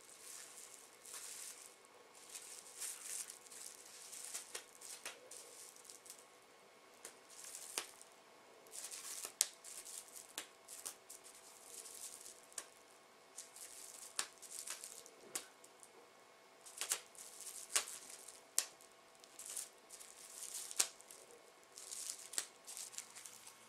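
Thin plastic film crinkling and crackling in irregular bursts, with sharp crackles, as a cat chews and tugs at it with its mouth.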